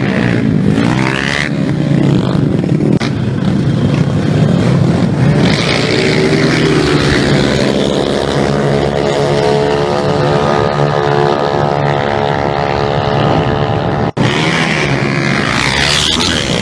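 Small motorcycle engines revving hard as the bikes race past, the engine pitch rising and falling with each pass. The sound cuts out for an instant near the end, then the engines are back.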